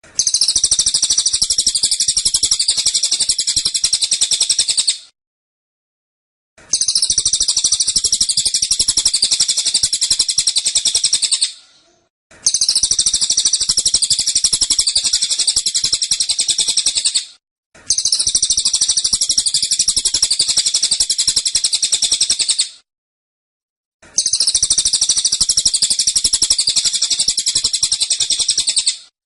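Cililin songbird giving its 'tembakan' song: five long bursts of very rapid, dense rapid-fire notes, each about five seconds, with short pauses between them.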